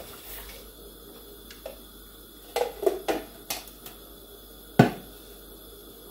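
Kitchen containers and utensils being handled and set down on a countertop: a few short clinks and knocks around the middle, then one louder knock a little before the end.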